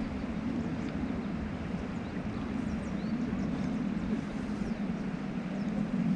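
Steady low rumbling outdoor noise, with a few faint high chirps.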